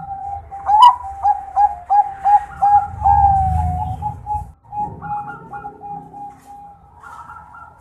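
Zebra dove (Bangkok-strain perkutut) cooing: a quick run of short coo notes starting about a second in, ending in a longer drawn-out note, then a softer series of coos. A low rumble sits under the long note.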